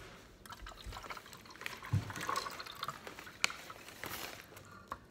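Liquid crystal-growing solution poured from a plastic bowl into a clear plastic tank, trickling and splashing unevenly, with scattered light clicks and a low knock about two seconds in.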